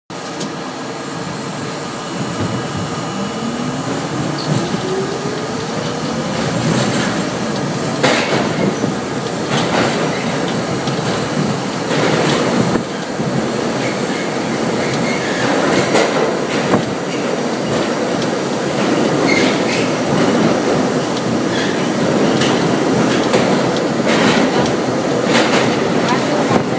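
New York City subway train heard from inside the car, pulling out and running through the tunnel: a whine rises in pitch over the first several seconds as it picks up speed, over a steady rumble, with sharp clacks of the wheels over rail joints every couple of seconds.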